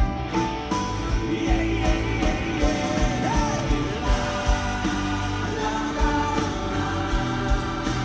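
Live rock band performing, with a male lead vocal singing over a steady drum beat and sustained band accompaniment.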